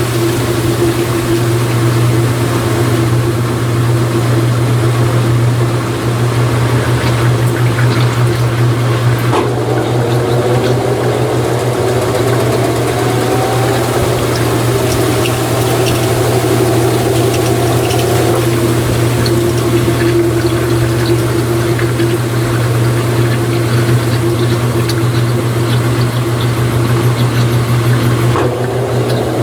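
Mueller Energy 8 kg top-load washing machine draining: the drain pump hums steadily as water runs out. A motor tone rises in pitch about a third of the way in and again near the end.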